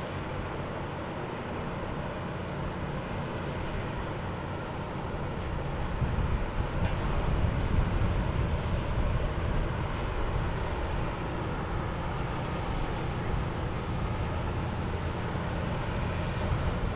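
Motorboat engines running as boats pass through the inlet: a steady low rumble that grows louder about six seconds in as a boat comes closer.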